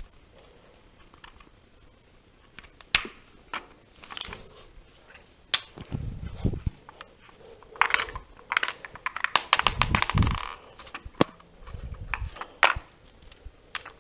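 Plastic LEGO bricks clicking and rattling as a hand-built candy machine is handled and tipped over, with scattered single clicks, a dense run of rattling clicks a little past the middle, and a few dull thumps.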